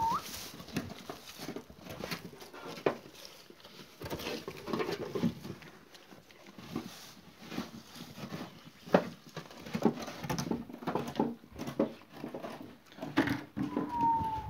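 Tsigai sheep feeding at a metal feeder: irregular crunching and rustling as they bite into chunks of feed, with a few sharper knocks and clicks.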